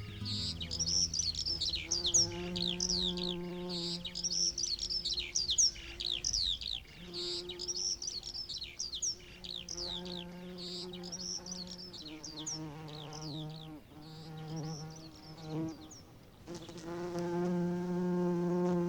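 Recorded birdsong, a run of quick chirping sweeps, over the buzz of a housefly, a steady drone that stops and starts again several times. The birdsong fades out about three seconds before the end, leaving the fly's buzz at its loudest.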